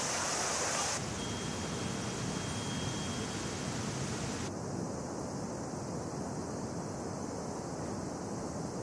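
Steady outdoor ambient hiss with no distinct event. For about the first second there is a brighter rush of flowing river water. After that a duller street ambience carries a faint steady high tone for a couple of seconds, and the high hiss drops away about four and a half seconds in.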